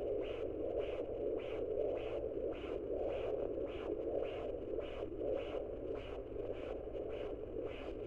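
Fetal heartbeat picked up by a handheld fetal doppler and played through its speaker: rhythmic whooshing pulses, about two and a half a second (about 150 beats per minute), over a steady hiss.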